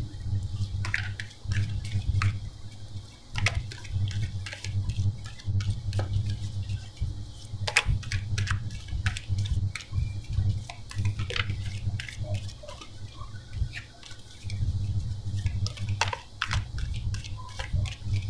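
A deck of round tarot cards being shuffled by hand, with irregular quick card flicks and snaps over a low rumble that comes and goes.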